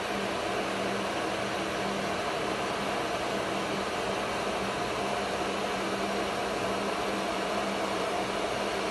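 Steady whir and hum of a CNC woodworking router running during automatic tool zeroing, with a constant low tone and a higher tone under even machine noise.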